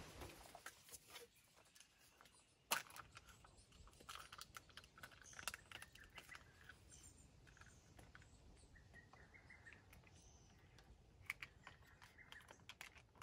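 Faint clicks and handling noises from a plastic pudding cup and a paper milk carton, with one sharper click about three seconds in. Faint short bird calls sound in the background.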